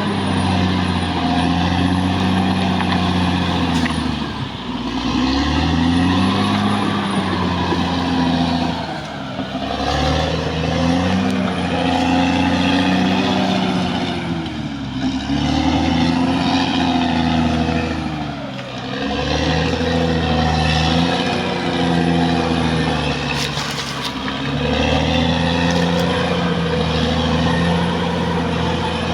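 Caterpillar D6R XL bulldozer's diesel engine working hard, its note dipping and recovering again about every five seconds as the load comes on and eases off. A faint high whine runs along with it.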